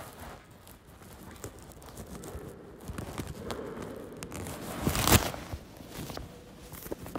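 Rustling and scattered light knocks, with one louder rustle a little after five seconds in.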